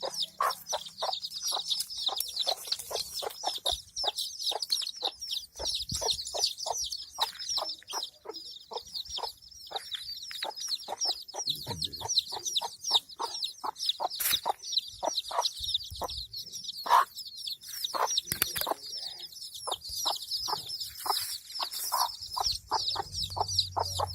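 A brood of domestic chicks peeping continuously in a dense high chorus, while a hen clucks over them in short, repeated notes a few times a second.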